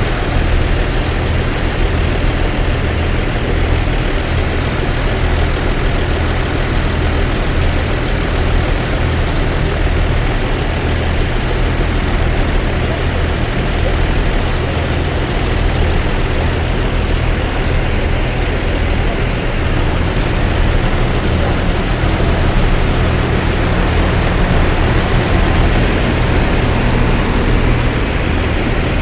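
Large bus diesel engine running steadily nearby: a low, even hum under a haze of traffic noise, with no horn sounding.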